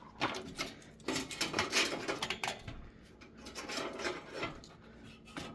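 Irregular clicks and clattering of metal and plastic computer parts being handled, as an optical drive is worked loose and pulled out of a desktop PC case's drive bay.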